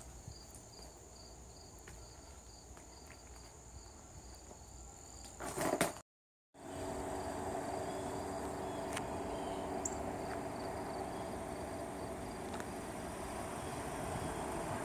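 Insects chirping in an even pulse, about two or three chirps a second, over a faint steady high hum. About six seconds in, a short loud rustle and a brief dropout to silence give way to a louder steady outdoor background noise, with the chirping still faint beneath it.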